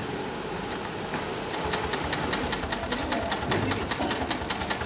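Sailmaster 366-76-12 heavy-duty industrial zig-zag sewing machine stitching sailcloth: a fast, even clatter of needle strokes that gets louder and sharper about a second and a half in.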